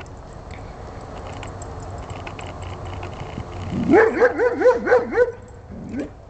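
Giant schnauzer barking in a quick run of about six barks, about four a second, then one more short bark near the end.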